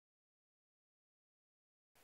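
Complete silence, with no sound at all.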